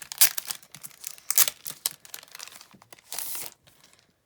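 DVD box-set packaging handled by hand: a run of short crinkling and rustling noises of paper, cardboard or wrapping, with one longer rustle about three seconds in.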